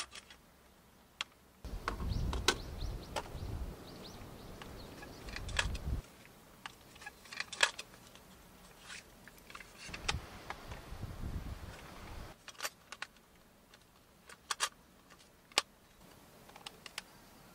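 Hands handling a clear plastic case and a portable cassette player: scattered sharp plastic clicks and snaps, with stretches of low rubbing and handling noise.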